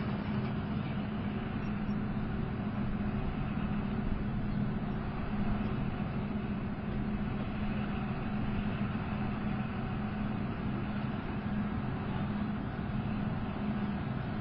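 Leopard 2A4 tank's V12 diesel engine idling with a steady drone.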